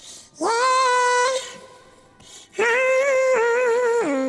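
Female vocal run through Ableton Live's Auto Shift pitch correction, transposed up about ten semitones with its formants raised, so it sounds high and thin. The notes hold dead flat and jump in steps: one held note, then after a short pause a longer phrase that steps down lower near the end.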